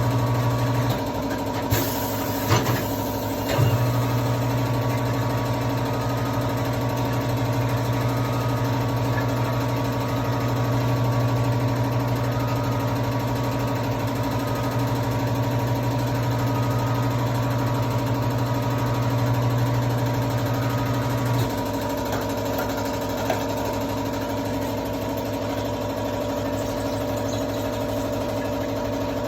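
Tyre-shop machine's electric motor running steadily with a hum, its strongest low part cutting out about 21 seconds in, and a few sharp clicks or knocks near the start.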